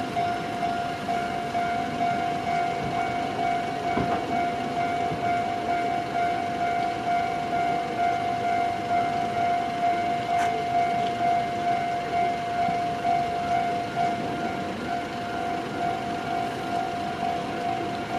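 Japanese railway level crossing's electronic warning bell ringing in a steady, regularly pulsing pattern, signalling that a train is approaching the crossing.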